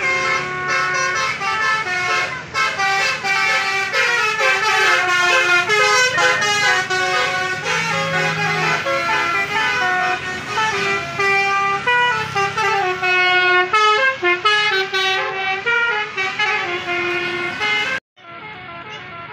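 Basuri (telolet) multi-tone vehicle horns playing melodies, several horn notes at once, changing from note to note. Cuts off suddenly near the end.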